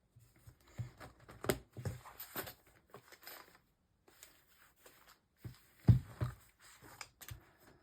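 Paper inserts and tab dividers being handled in a leather ring-bound personal organizer: rustling with scattered light clicks and knocks, the loudest about a second and a half in and about six seconds in.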